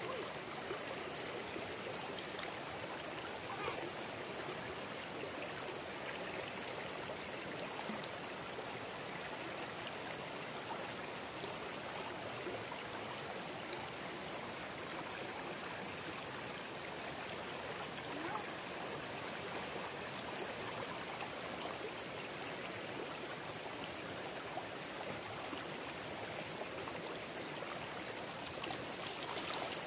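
Steady rushing and trickling of a small forest stream flowing over rocks, with a few faint ticks.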